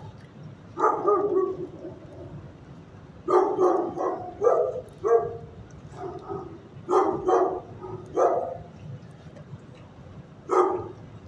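Dogs barking in a shelter kennel: about ten short barks in irregular bouts of one to three, with pauses of a second or two between them.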